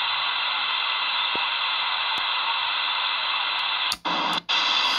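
Steady hiss of static from a CRT 6900N CB radio's speaker, tuned to 27.025 MHz on USB with no voice heard through it. About four seconds in, the hiss cuts out twice briefly as the mode knob is switched to FM, then comes back brighter.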